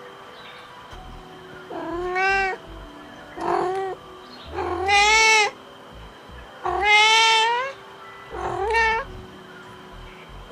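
Domestic cat meowing: five drawn-out meows a second or so apart, each sliding up in pitch and then holding. A sound effect meant to catch a cat's attention.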